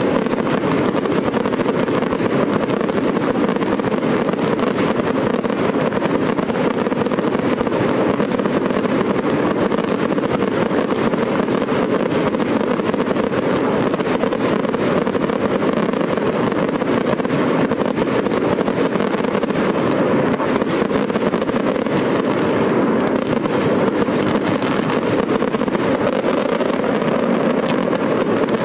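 Fireworks display: a dense, steady crackling and popping of aerial shells and ground fountains, with no pause and no single bang louder than the rest.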